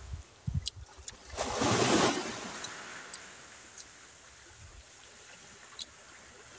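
Seaside surf and wind noise: a loud rush about a second and a half in, then a faint steady wash, with a few light clicks.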